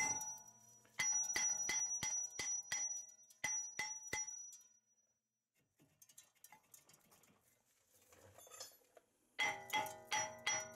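Outro music of bell-like struck notes, like a glockenspiel or marimba. A quick run of notes breaks off into a pause of about five seconds, and the notes start again near the end.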